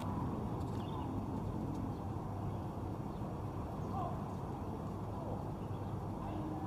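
Steady outdoor city ambience: a low hum of traffic with faint, indistinct voices of people around, and a few brief higher calls, the clearest about four seconds in.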